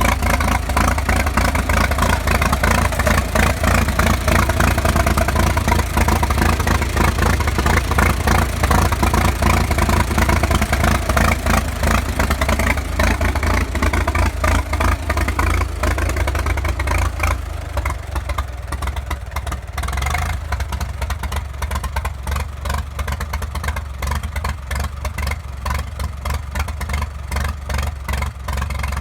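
1937 Farmall F-20's four-cylinder engine running steadily just after a cold start. About 17 seconds in it drops to a quieter, lower idle.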